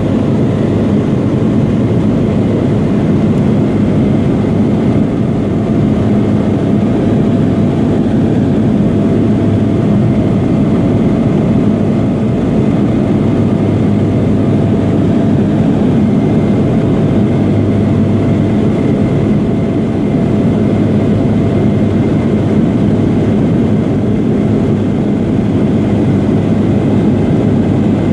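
Light aircraft's engine and propeller running steadily in cruise, heard from inside the cabin as a constant low drone with a faint steady whine above it.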